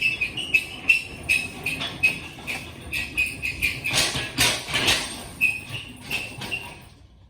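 Roll-up shop door being opened: a rhythmic run of high squeaks from its rollers, about two or three a second, with rattling of the door slats, stopping about seven seconds in.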